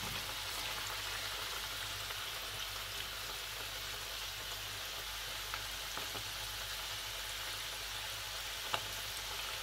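Battered chicken pakodi pieces deep-frying in hot oil: a steady sizzle of bubbling oil, with a few faint ticks, one near the end, as more pieces are dropped in.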